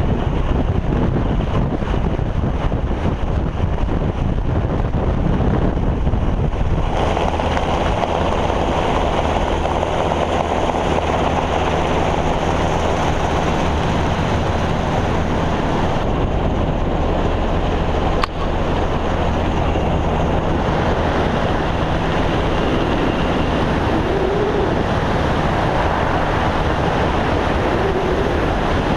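Helicopter rotor and engine noise, steady and loud, with wind buffeting the microphone; the sound shifts about seven seconds in, and there is a short click about eighteen seconds in.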